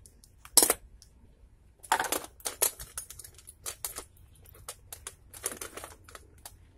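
Irregular metallic clinks and clatter of locking pliers holding a bullet mold and small pieces of cast lead being handled and set down on a workbench. A sharp clink comes about half a second in, with a cluster of clinks around two seconds in and scattered lighter ones after.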